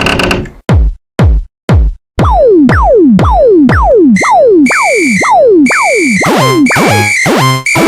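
Electronic music made of repeated falling pitch sweeps, three short ones and then about two a second, joined by steady high beeps about four seconds in and a busier layered pattern of stepped notes near the end.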